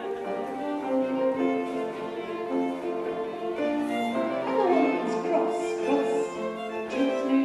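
English country-dance tune played on fiddle and other bowed strings, in a run of held notes.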